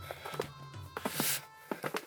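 Background music with irregular sharp crunches and clicks over it, and a short hiss about a second in.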